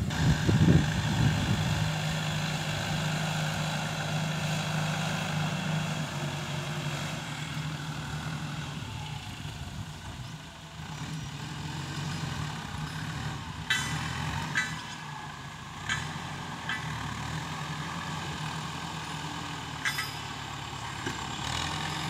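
Ford 7740 tractor's diesel engine running steadily under load while pulling a three-disc plough through hard, dry soil. The engine grows quieter around the middle, then steadies again, and there are several short, sharp clicks in the second half.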